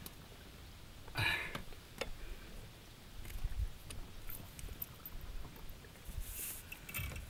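Faint handling noise: a few scattered soft knocks and rustles as the landing net holding a chub is lifted and moved about in an inflatable boat.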